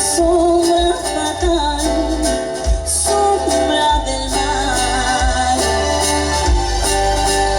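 A live Tejano band playing a slow song, with a voice singing over guitar and a steady low bass beat.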